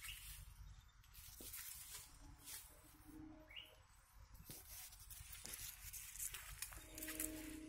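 Quiet outdoor ambience of soft rustling and crackling, like leaves and twigs being brushed and handled, with one short rising chirp about three and a half seconds in.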